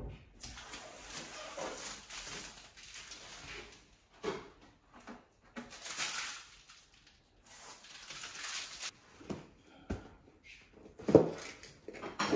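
Rustling and scraping handling noises from hands working on a flat-screen TV and a cardboard box, in several separate stretches, with one louder knock about eleven seconds in.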